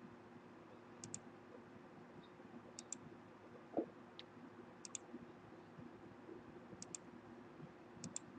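Faint clicks of a computer mouse button, each a quick press-and-release pair, repeating about every one to two seconds over a low steady hum. There is one soft low knock near the middle.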